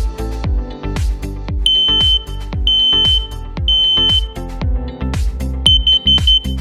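Electronic music with a steady kick-drum beat, over which a smoke and carbon monoxide alarm's high-pitched beeper sounds. It gives three half-second beeps a second apart, the temporal-three smoke alarm pattern, then after a pause four rapid short beeps near the end, the temporal-four carbon monoxide alarm pattern.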